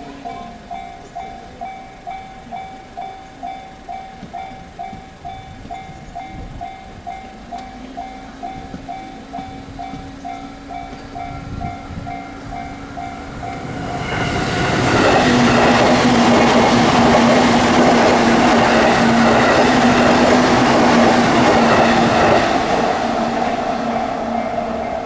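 Japanese level-crossing alarm ringing at about two dings a second, then a limited express train passes over the crossing a little past halfway. The train's running noise with a steady hum drowns the bell for about eight seconds, then begins to fade.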